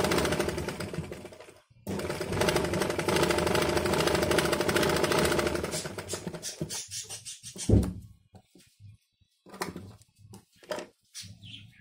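Domestic sewing machine stitching fabric in a fast, even run of needle strokes. It stops briefly about two seconds in, runs again, then slows and stops around six seconds. A few scattered clicks and one sharp knock near eight seconds follow.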